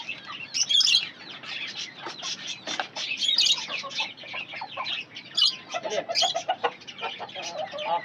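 Chickens clucking, with a run of clucks just past the middle, over constant chirping of many small cage birds.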